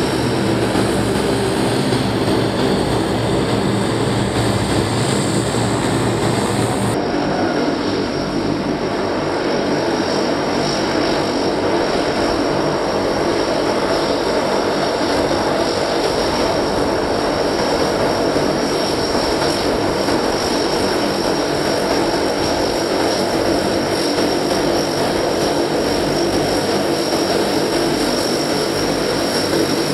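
Turboprop aircraft engines running steadily as planes taxi: first a U.S. Air Force C-130 Hercules passing close by, then, after an abrupt change about seven seconds in, the four turboprops of NASA's Super Guppy cargo plane.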